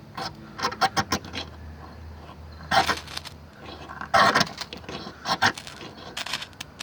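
Serrated blade of a cheap multitool scraped down a ferro rod as a striker: a quick flurry of short rasping strokes, then four longer scrapes about a second apart. The strokes do strike the rod.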